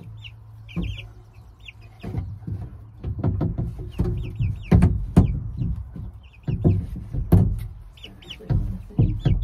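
Young chickens peeping in short high chirps, over a run of dull knocks and bumps as a large framed mirror is handled and set against the coop's wooden plank wall.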